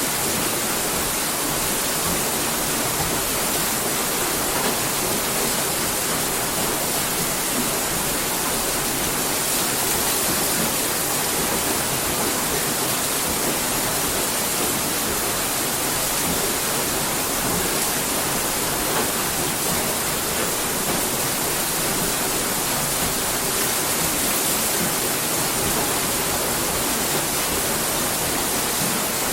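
Water pouring and splashing over a turning water mill wheel: a steady, unbroken rushing.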